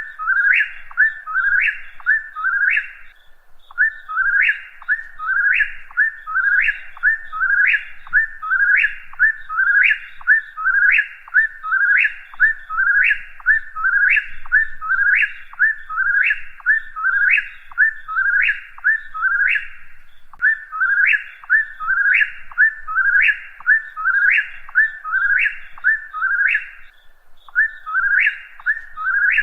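A whip-poor-will singing its three-note 'whip-poor-will' song, repeated about once a second in long unbroken runs. Each phrase ends on a sharp upward whistle. The runs pause briefly a few seconds in, about two-thirds of the way through, and near the end.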